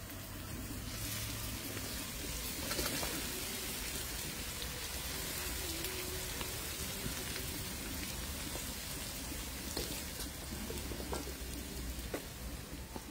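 Seasonings and peppers frying in hot oil in a pot over a wood fire: a steady rain-like sizzle that swells about a second in and again near three seconds, with scattered sharp pops.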